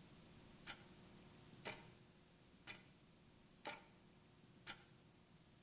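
A clock ticking faintly and evenly, about one tick a second, in a near-silent room.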